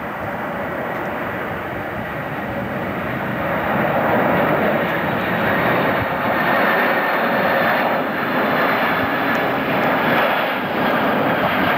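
Boeing 747's four jet engines running as the airliner passes low on approach, growing louder about four seconds in, then steady.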